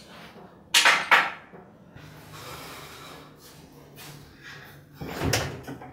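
Door or cupboard sounds: two sharp knocks a split second apart about a second in, then a heavier bang about five seconds in.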